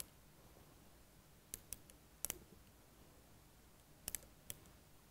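Light, sharp metallic clicks as a caliper's jaws are set and slid against a steel shaft to measure it: a handful of clicks in three small groups, some in quick pairs, over faint room tone.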